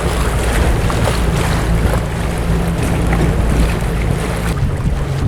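Small motorboat's engine running steadily at low speed, with wind buffeting the microphone; the wind noise eases about four and a half seconds in.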